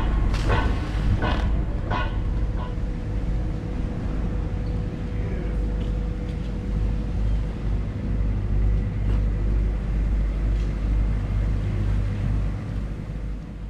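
Fishing boat's diesel engine idling: a steady low rumble with a faint steady whine above it. Several sharp knocks come in the first two seconds.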